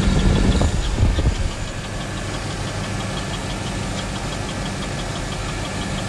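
2009 GMC Sierra's 5.3-litre V8 running with a rapid, steady tick, about five a second: one of its lifters has collapsed.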